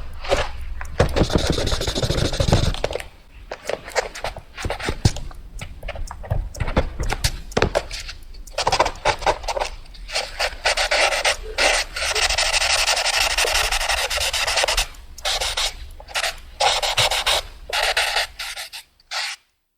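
A pencil or pen drawing fast on paper: many quick scratchy strokes, with longer unbroken runs of scribbling about a second in and again around twelve seconds in, stopping just before the end.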